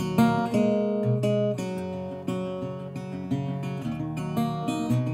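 Background music: acoustic guitar picked and strummed, with notes changing in a steady rhythm.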